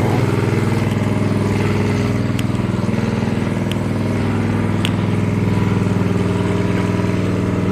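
An engine running steadily at a constant speed, a low even drone, with a few faint ticks.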